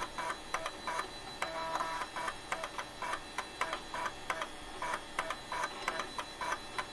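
Outro background music with a quick, even rhythm of short notes and clicks.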